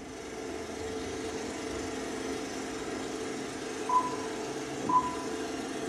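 Television static hiss with a faint steady hum under it, then two short high beeps about a second apart near the end, the one-per-second beeps of a film countdown leader.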